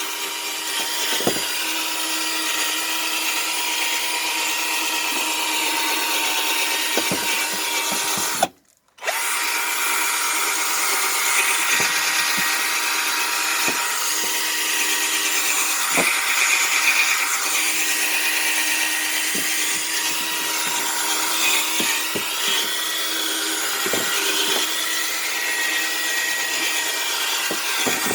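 Power drill running steadily while buffing a plastic headlight lens. It cuts out for about half a second near the middle, then runs on.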